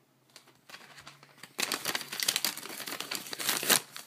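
Paper crinkling and rustling as a folded note wrapped around trading cards is unwrapped. Faint at first, it turns loud and dense about a second and a half in, then stops shortly before the end.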